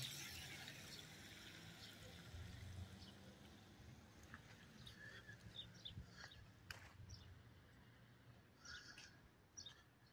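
Near silence: faint outdoor ambience, with a low rumble fading out over the first few seconds and a few faint, brief chirps and clicks.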